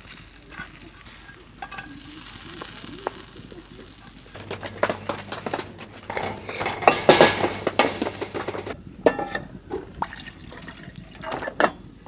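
A wooden spatula scraping lightly in a small metal frying pan, then a knife sawing through crisp toasted bread on a wooden cutting board, crunching, loudest in the middle, with a couple of sharp knocks near the end.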